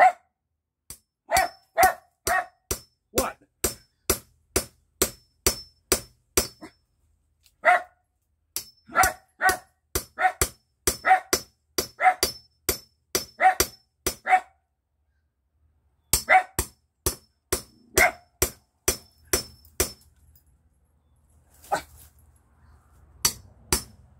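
Steel hammer striking a chisel into green cherry plum wood, sharp ringing blows at about two a second with short pauses. A small terrier barks repeatedly among the blows. A low rumble comes in near the end.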